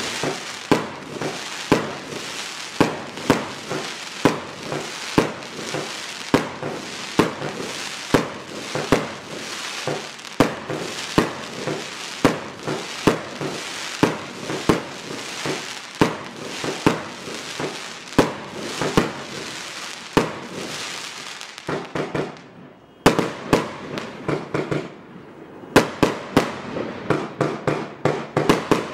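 Gemstone Fireworks 'Obsessed' 225-shot compound firework cake firing: a steady run of sharp shots about two a second, with noise that never dies away between them. There is a brief lull about two-thirds of the way through, then a quicker volley of shots near the end.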